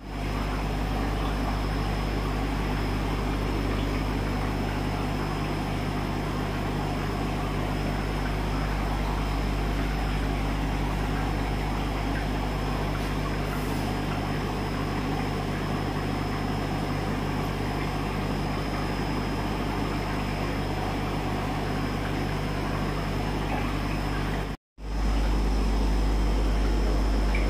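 Steady hum and hiss of aquarium air pumps and filters running, with a thin high whine above it. The sound cuts out for a moment near the end, then comes back slightly louder.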